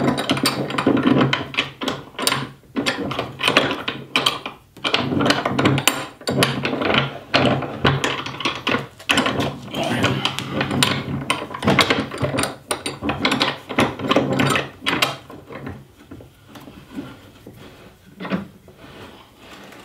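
Steel guide rods and threaded screw of a woodworking bench vise being pushed and wiggled through tight holes in a wooden table apron: irregular knocks and wood-on-metal rubbing and scraping, the screw binding in its hole. The knocking dies down over the last few seconds.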